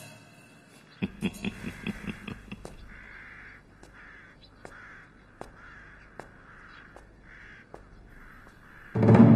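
Crows cawing, a string of short harsh calls roughly once or twice a second, with a quick run of sharp clicks or knocks in the first few seconds. Music with timpani comes in near the end.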